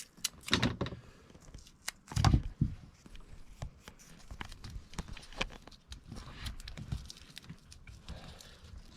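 Hands wrapping a cable end round a cable puller to fix it on: irregular rustling and crinkling handling sounds, with a louder low knock about two seconds in.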